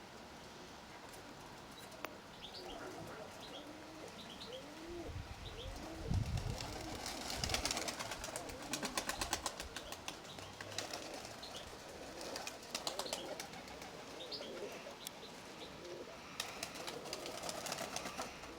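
Nikolaev pigeons cooing, with bursts of rapid wing flapping as the birds take off, about a third of the way in and again near the end. Faint high chirps of small birds come through here and there.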